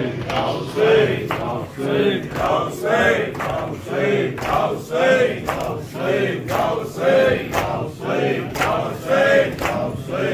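A crowd of men chanting an Urdu noha in unison, one sung phrase about every second, over a steady beat of sharp strikes that fits the chest-beating (matam) of the mourners.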